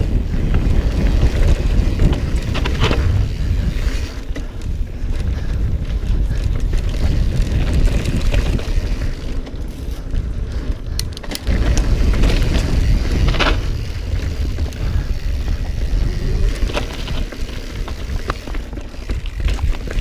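Mountain bike riding fast over a dirt singletrack, recorded on the bike's action camera: a steady rumble of wind buffeting the microphone and tyres on dirt, with occasional sharp knocks and rattles as the bike hits bumps.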